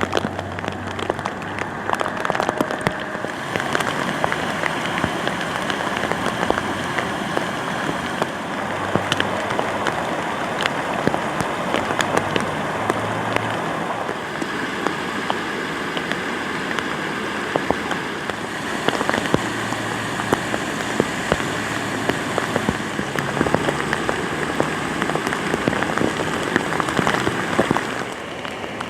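Heavy rain falling steadily, with many individual drops striking hard surfaces close by as sharp pattering clicks.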